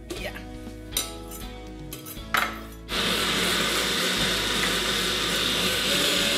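A few knocks of utensils against a bowl, then about three seconds in an electric blender starts and runs steadily, puréeing raspberries with vanilla and honey into a sauce.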